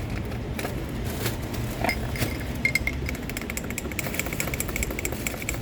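Rapid clinking of ice and a utensil against a drink cup, starting about two and a half seconds in, over a steady low hum.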